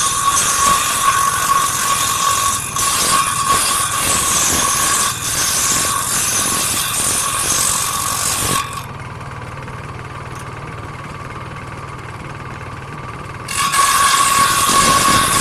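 Power saw cutting wood: a loud steady whine with cutting noise for about nine seconds, dropping to the quieter hum of the running motor for about five seconds, then cutting again near the end.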